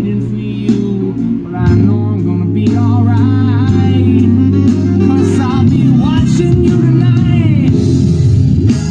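A recorded song with a singing voice, guitar and a steady bass line, played back as a sound test, plausibly through a Montarbo B108 8-inch active speaker.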